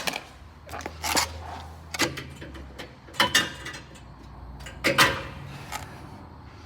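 Five sharp knocks and clatters, irregularly spaced about a second apart, over a faint low hum: a loose piece on the Dodge Charger Scat Pack's underside rattling as it is moved, the source of the car's reported rattle.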